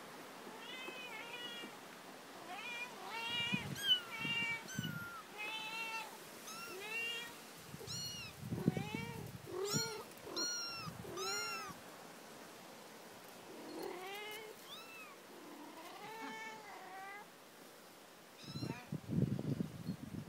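Kittens mewing again and again: about twenty short, high-pitched mews, some rising and falling, that stop a few seconds before the end. A few low bumps and rustles follow near the end.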